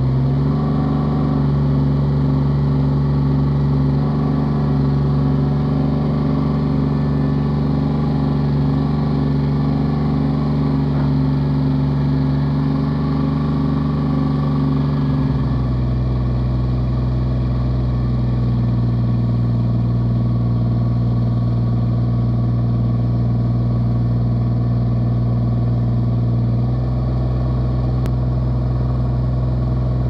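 Sawmill's gasoline engine running steadily, its speed dropping to a lower, even pitch about halfway through.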